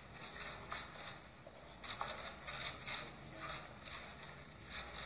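Press photographers' camera shutters clicking in quick, repeated bursts.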